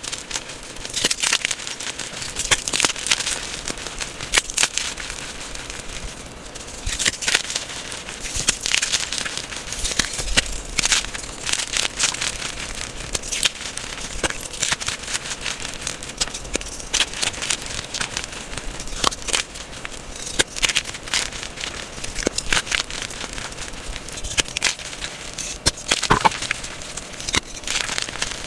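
Fingers crushing and crumbling chunks of reformed gym chalk in loose powder: a continuous dry crunching and crackling with frequent sharp snaps.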